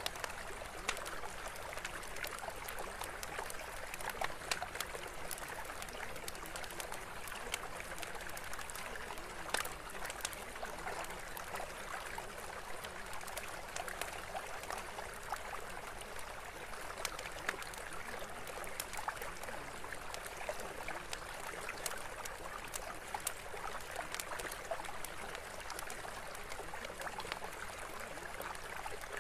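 Steady sound of running water, like a trickling stream, with small ticks scattered through it.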